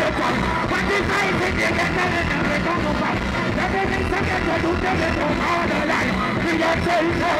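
Live reggae band playing over the PA with a steady beat, and a male vocalist chanting and singing into a microphone over it.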